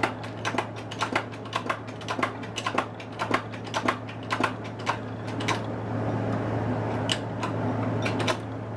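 Sharp, irregular metal clicks and taps, a few a second, as a keyed transmission gear is worked down onto its shaft in a press, over a steady low machine hum that grows slightly louder about halfway through.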